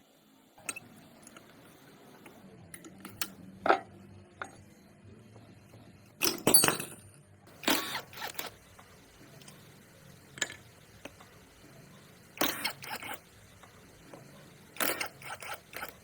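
Tools and metal parts being handled during repair work: scattered light clinks and knocks, a sharper knock about four seconds in, then five short scraping or rasping bursts a couple of seconds apart.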